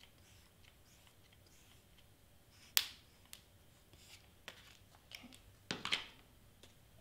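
Quiet handling of cardstock and a mini hot glue gun on a cutting mat: scattered small clicks and taps, a sharp click a little under three seconds in, and a short cluster of knocks and paper rustle near the end as the glued piece is put down.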